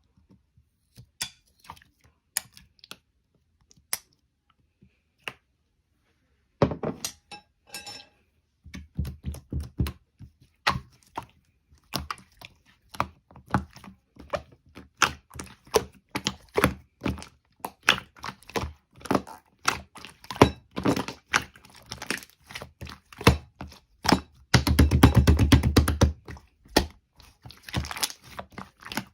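Walnuts in their shells being handled and cracked: sparse clicks at first, then a dense run of sharp knocks and cracks, with a fast rattle lasting about a second and a half near the end.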